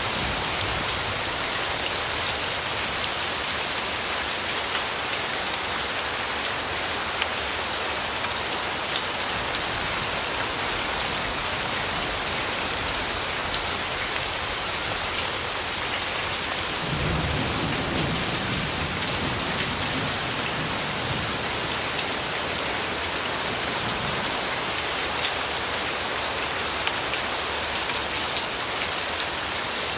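Steady rain falling, an even hiss of many drops. About seventeen seconds in, a low rumble of thunder swells for a few seconds.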